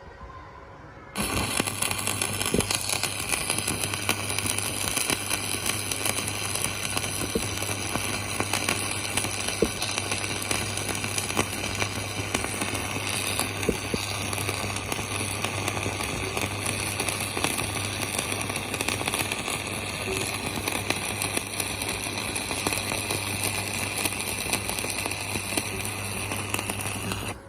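Stick (electric arc) welding: the arc strikes about a second in and crackles steadily over a low hum, then breaks off abruptly just before the end.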